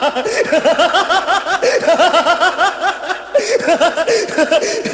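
Laughing ringtone: a man laughing hard and without a break, in rapid repeated 'ha-ha-ha' peals.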